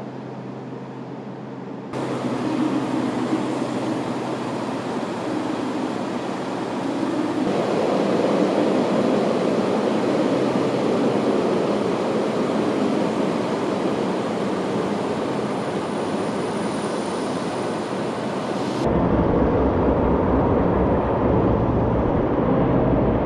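JR Hokkaido DE15 diesel locomotive's engine running at a steady hum and rumble. In the last few seconds a heavier, deeper rumble comes in.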